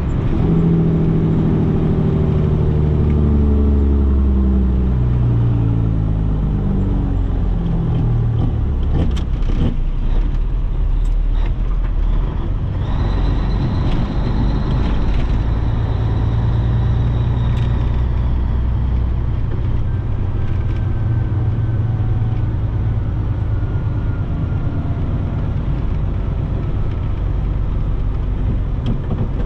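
Peterbilt 362 cabover truck's diesel engine heard from inside the cab as the truck slows, its pitch dropping in steps over the first several seconds, then running steadily at low speed. A few sharp clicks come in the middle, and a high steady whine runs for about five seconds.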